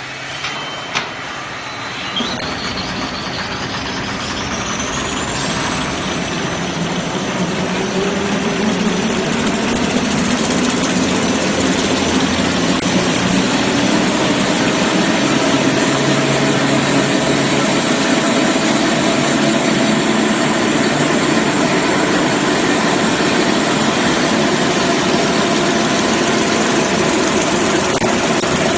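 Kitchen towel paper rewinding machine starting up: a couple of clicks, then it runs up to speed with a high whine rising steadily in pitch over about twelve seconds as the running noise grows louder, before settling into steady full-speed running.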